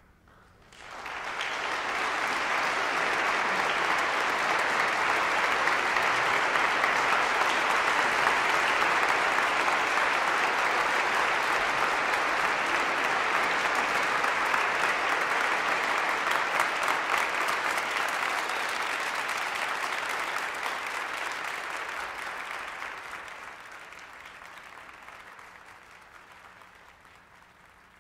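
Audience applauding: the clapping starts about a second in, holds steady, then dies away over the last several seconds.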